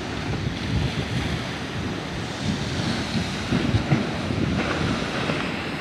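Sea waves breaking and surging against a stone sea wall, with wind buffeting the microphone.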